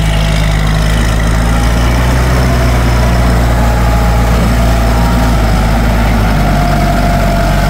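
Kubota M704 tractor's diesel engine running steadily close by, a low, even drone.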